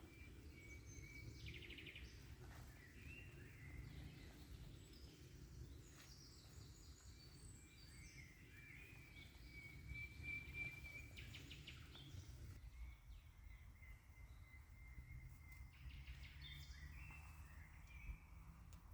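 Faint birdsong in a forest: thin high whistles with a couple of short rapid trills, over a steady low background rumble.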